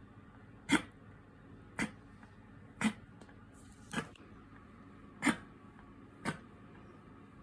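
Bichon Frise dog in a reverse-sneezing fit: six short, sharp snorts, about one a second.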